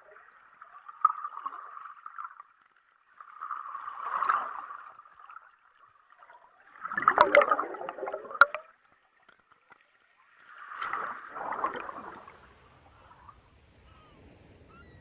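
Water gurgling and sloshing in four surges a few seconds apart, with a few sharp clicks in the third surge.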